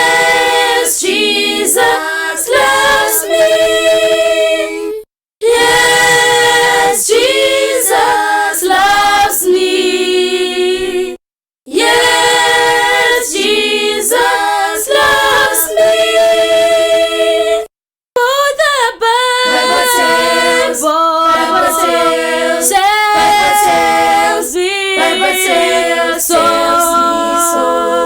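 A cappella vocal group singing unaccompanied in harmony, broken by three brief silent gaps.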